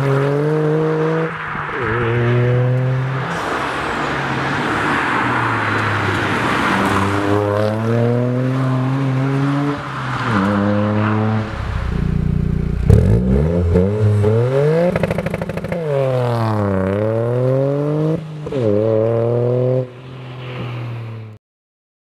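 Toyota GR Yaris's turbocharged 1.6-litre three-cylinder, breathing through an Eventuri carbon intake and an OPF-delete, non-resonated, non-valved Bastuck/Ragazzon exhaust. It first pulls through the gears, its pitch climbing and dropping back at each shift. Then it gives a series of quick revs rising and falling, and the sound cuts off shortly before the end.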